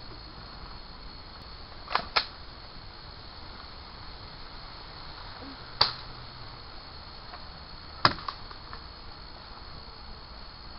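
Airsoft guns firing single shots: four sharp snaps, a quick pair about two seconds in, then one near six seconds and one near eight seconds.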